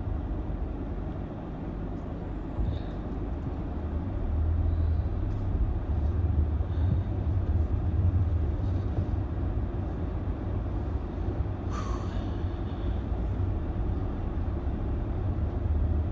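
Steady low rumble of a car's engine and tyres heard from inside the cabin as the car drives slowly. A brief hiss comes about twelve seconds in.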